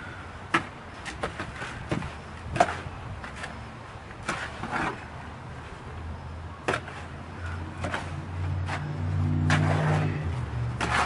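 Scattered knocks and scrapes of tools at work during concrete mixing, with a low engine hum that comes in about halfway and builds to its loudest near the end.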